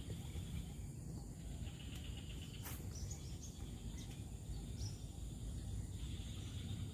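Insects chirring in spells of half a second to a second, with a steady high thin whine above and a few short bird chirps, over a low rumbling noise; one sharp click a little before the middle.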